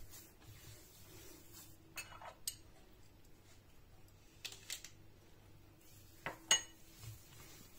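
A small white ceramic bowl clinking against a glazed clay dish while cookie dough is kneaded by hand. The clinks are light and come in three quick pairs, the last pair near the end being the loudest.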